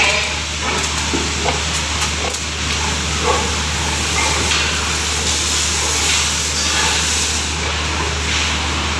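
Power sprayer hissing steadily as it mists disinfectant over sows in their crates, with a steady low hum beneath.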